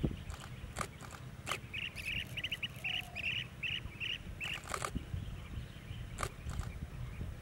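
Blue-tailed bee-eaters calling: a run of short, quick chirps lasting about two seconds, starting about two seconds in. A few sharp clicks and a steady low rumble sit underneath.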